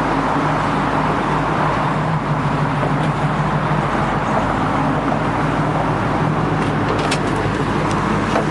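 1968 Camaro's 350 four-barrel V8 idling steadily through headers and dual exhaust, with a few light clicks near the end.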